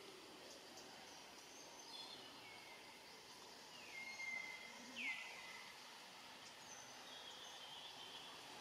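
About four high, whistled animal calls over a faint steady background hiss. Each call falls in pitch and then holds briefly, and the sharpest and loudest one comes about five seconds in.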